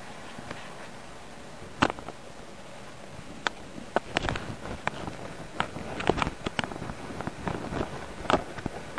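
A cat's claws and paw tapping and scratching on a camera body right at the microphone: sharp, irregular clicks and scrapes, a few at first, then coming more often after about four seconds as her nail catches in the gap of the lens.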